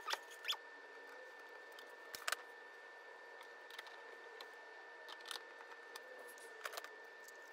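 Faint scattered clicks and taps of hands working on a plastic EV charger housing, over a faint steady hum.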